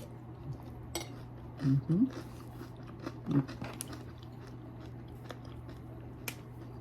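Person eating crunchy breakfast cereal (multigrain flakes and Cinnamon Toast Crunch): scattered crunches and chewing, with a couple of short murmurs of the voice about two and three and a half seconds in, over a steady low hum.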